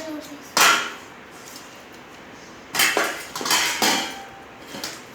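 Plates clattering and knocking as they are handled: one clash about half a second in, then three more in quick succession around three to four seconds in, each with a short ring.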